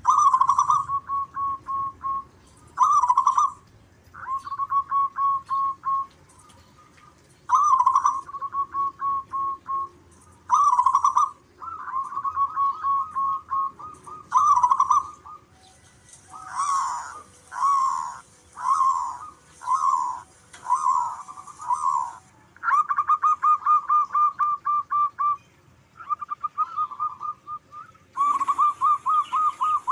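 Zebra doves (perkutut) cooing and answering each other. The calls are repeated phrases of quick staccato notes, each phrase a second or two long with short pauses between. Around the middle they turn into a run of separate swooping notes, and near the end into a longer unbroken trill.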